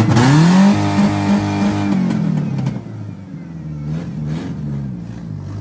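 Ford Ranger pickup's engine just after starting, revving up at the start, holding for about two seconds, then dropping back to a steady, quieter idle.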